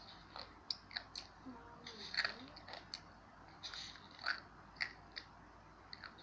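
Faint, irregular small crunches and clicks, one or two a second: a child chewing crunchy dry instant-noodle snack.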